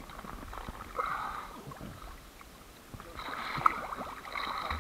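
Small waves lapping and splashing against a camera at the water's surface, in irregular gurgles and slaps, louder about a second in and again over the last couple of seconds.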